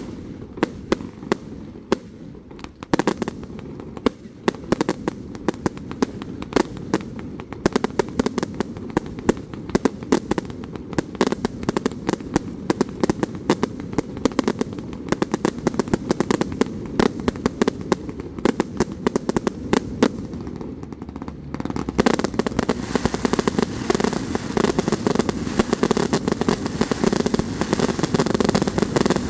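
Fireworks display: a rapid string of sharp bangs and pops over a steady low rumble, growing denser and louder about 22 seconds in.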